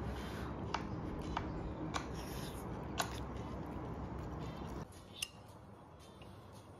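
Chopsticks clinking against a ceramic bowl while stir-fried flat rice noodles are lifted and eaten: about five light, sharp clinks, spread over several seconds, over a steady background hiss that drops away about five seconds in.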